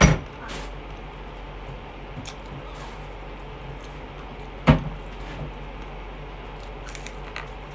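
Eating sounds from someone chewing chicken with her hands, with small wet clicks and smacks. Two sharp knocks, one right at the start and one about four and a half seconds in, over a steady low hum.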